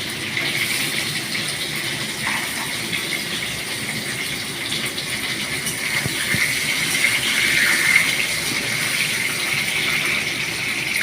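Potato pieces sizzling in hot oil in a kadai, a steady hiss of frying.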